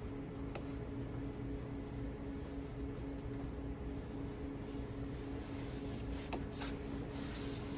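Hands rubbing and pressing on car interior trim and rubber seal, a faint scratchy rustle with a few light clicks, over a steady hum.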